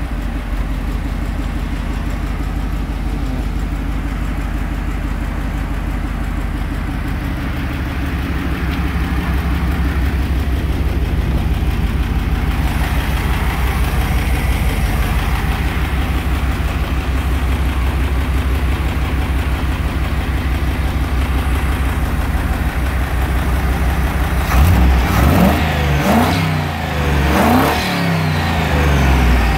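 Rover V8 engine idling steadily, then revved by hand at the throttle linkage a few times near the end, the revs rising and falling quickly with each blip.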